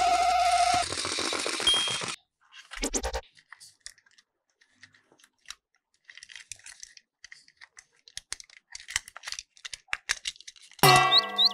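Battery-powered plastic gear toy running, its small motor and gears giving a rattle with a steady whine, which cuts off about two seconds in. Light clicks and plastic rustling from the toy being handled follow. Near the end a short burst of music with chirping notes starts.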